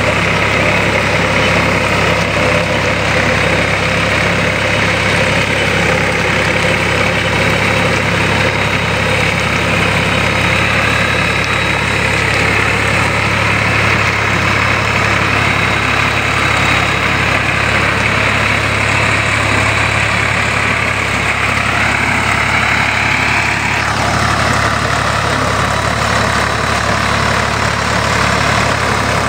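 Swaraj 855 tractor's three-cylinder diesel engine running steadily.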